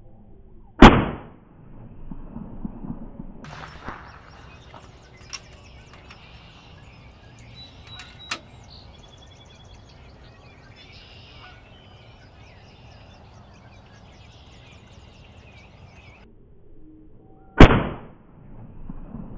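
A PCP air rifle firing two single shots: one sharp crack about a second in and another near the end. Birds sing faintly in between, and there are a couple of small clicks.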